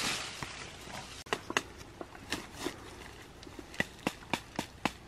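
Machete blade knocking and tapping while working a black ant nest: short, sharp taps, scattered at first, then coming faster, about four a second, near the end.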